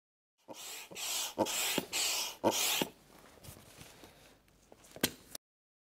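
Air pump being worked to inflate an inflatable tent's air pole: four quick pump strokes, each a rush of air with a knock, then softer rustling and a single click.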